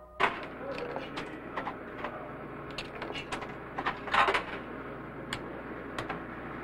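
Snack vending machine in use: scattered clicks and knocks over a steady hiss, with a louder clatter about four seconds in.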